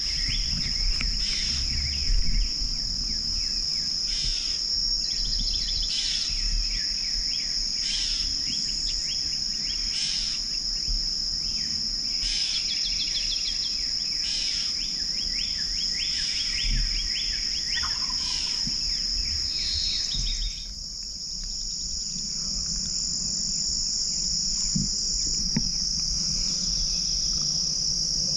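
Pre-dawn night chorus: a steady high-pitched insect trilling with many short chirping calls over it. The chirping stops about two-thirds of the way through, leaving the insect drone.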